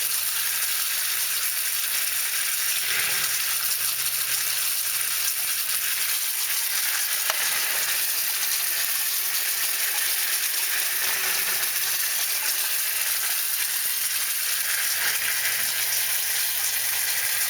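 Zoeller M267 sump pump running continuously, with water spraying and gushing out of its leaking pump-to-pipe connection as a steady hiss over a low hum. The pump keeps running even with the float in the off position, which the owner puts down to a float switch not working properly.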